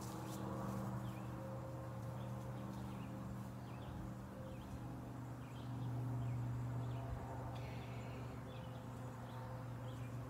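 A steady low mechanical hum, like a motor running, louder for a moment about six seconds in, with faint scattered bird chirps over it.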